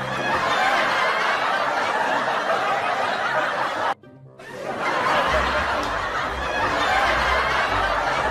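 Laughter over background music. The sound cuts out for about a second, about four seconds in, then comes back with low bass notes added.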